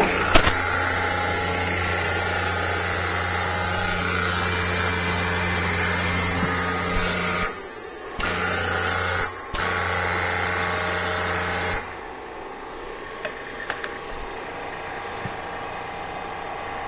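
Electric high-pressure washer's motor and plunger pump running with a steady hum. It cuts out briefly twice about halfway through, then carries on at a lower level for the last few seconds.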